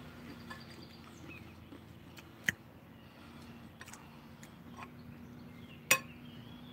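A metal fork clinking against a glass salad bowl: two sharp clinks about three and a half seconds apart, the second the louder, with a few fainter taps between them.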